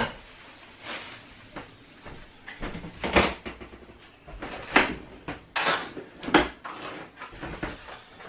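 Kitchen items being picked up and set down on a wooden worktop: a string of separate knocks and clunks, irregular, about one every second.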